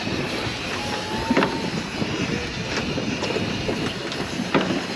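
Steady rumble of a charter boat's engine under wind and water noise, with a few sharp knocks.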